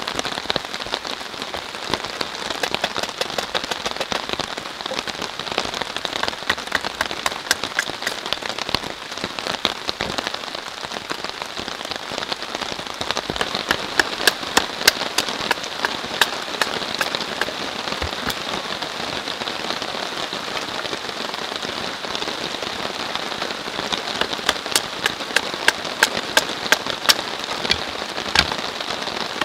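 Heavy rain falling steadily in a downpour, an even hiss of drops, with clusters of sharp taps around the middle and again near the end.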